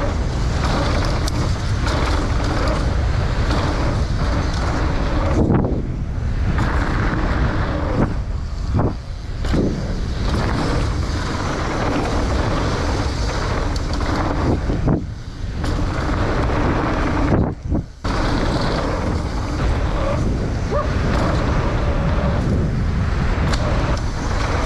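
Mountain bike tyres rolling fast over a rough dirt trail, with wind buffeting a helmet- or bike-mounted action camera and rattling from the bike. There is a dense rumble and hiss throughout, broken by four brief lulls.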